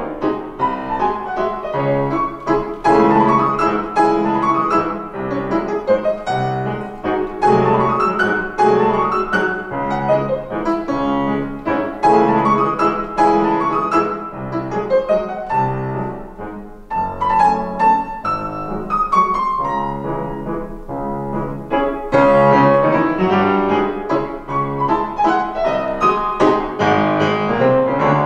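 Grand piano played four hands by two pianists: a classical piano duet with a regular bass and runs that rise and fall in the upper part, repeating in phrases of about two seconds.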